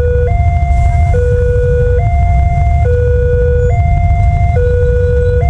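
Railway level-crossing alarm sounding its electronic two-tone siren, switching between a lower and a higher tone a little more than once a second. A steady low rumble runs underneath.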